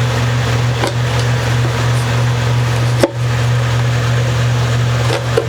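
A few sharp wooden knocks and clicks, the loudest about halfway through, as a mandolin and small tools are handled on a workbench, over a steady low hum.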